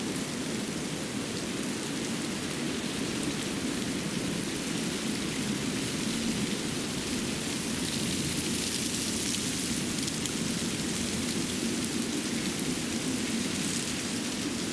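Steady rushing of running water, an even noise with no separate drips or splashes; its hiss brightens for a couple of seconds about eight seconds in.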